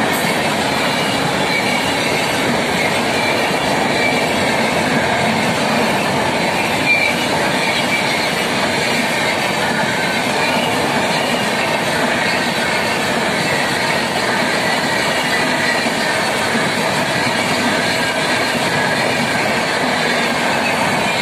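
A train of LHB passenger coaches passing close by at speed: a steady rush of wheels running on the rails, with a faint high-pitched wheel squeal over it.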